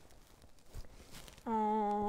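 A woman's voice holding one long, level hesitation sound, like a drawn-out "uhh", starting about three-quarters of the way in; before it only faint rustling and light clicks.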